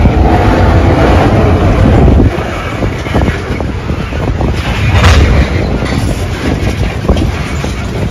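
Freight cars (covered hoppers and gondolas) rolling slowly past, wheels knocking over the rail joints, with strong wind buffeting the microphone in gusts at the start and again about five seconds in.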